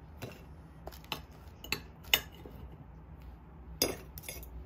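Metal knife and fork clinking against ceramic plates while cutting bread: about six sharp clinks at uneven intervals, the loudest a little past two seconds in. A low steady hum lies underneath.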